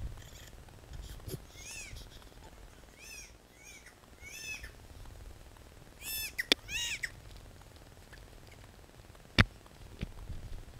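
Newborn baby's short, high, mewling cries, about five of them in the first seven seconds. A sharp knock comes about nine seconds in.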